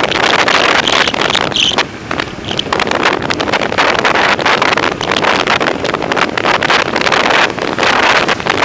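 Wind buffeting the microphone of a bicycle's handlebar camera while riding at speed: a loud, steady rushing noise that eases off briefly about two seconds in.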